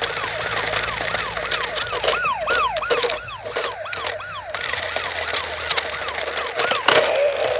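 Electronic siren from a toy RC police motorcycle's sound unit: quick falling wails, about three a second, over crackling from the small wheels on rough asphalt. Near the end the wails stop and a steadier wavering tone takes over.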